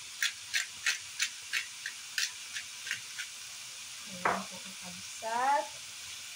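Pepper grinder being twisted over a pan, giving short gritty crunches about three a second for roughly three seconds, over faint sizzling from the pan. A brief rising pitched sound comes about five seconds in.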